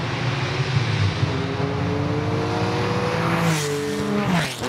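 Car engine running with its revs slowly climbing, then a quick whoosh near the end as the pitch falls sharply, like a car passing by.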